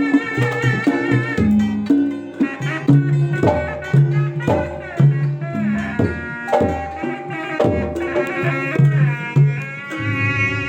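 Traditional-style music: hand drums playing a steady rhythm under a wavering, vibrato melody line.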